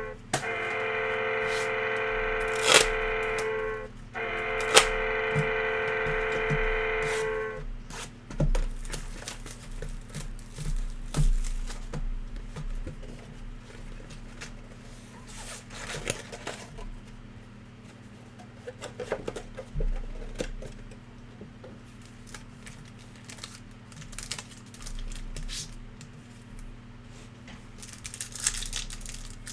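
A steady held tone for the first several seconds, broken briefly partway through. It is followed by the crinkling and tearing of trading-card pack wrappers and the small clicks and rustles of cards being handled.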